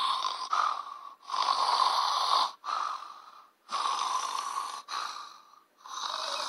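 Snoring: about three cycles, each a loud, rasping in-breath followed by a softer out-breath that fades away.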